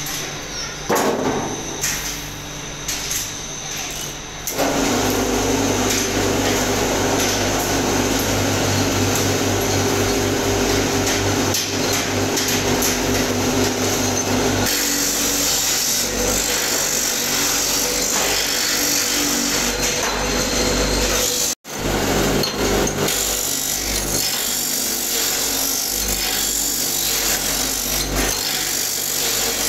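Brake-shoe lining machine running steadily: an electric motor hum with a harsh grinding hiss as motorcycle brake shoes pass through on a chain conveyor. It comes in loud about four seconds in and cuts out for a moment about two-thirds through.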